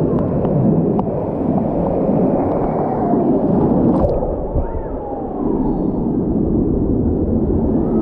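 Fast water rushing and sloshing around a camera riding a water-park rapids river slide, with a continuous dull, muffled churn.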